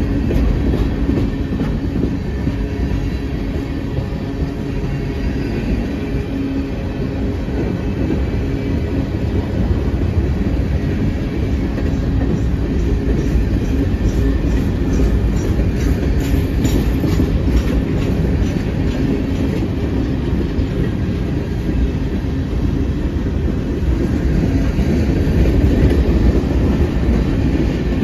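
Freight cars of a passing train rolling by close at hand: a steady rumble of steel wheels on rail, with a run of rhythmic clickety-clack about halfway through.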